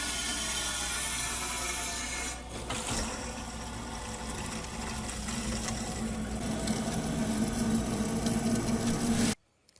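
Water rushing through newly repaired supply plumbing as the water is turned back on: a steady hiss that eases a little a couple of seconds in and stops abruptly near the end.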